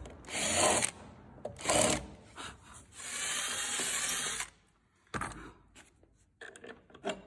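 Cordless drill with a countersink bit cutting into the teak deck in two short bursts, then running steadily for about a second and a half. After it stops, a few light clicks of small stainless fittings being handled.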